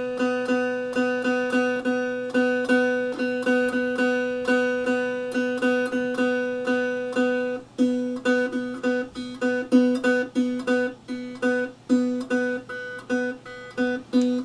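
One-string CB Gitty diddley bo, a cigar-box instrument, plucked over and over on a single open note, about three to four plucks a second in a steady rhythm. About halfway through, after a brief break, the notes turn short and cut off, in a choppier rhythm.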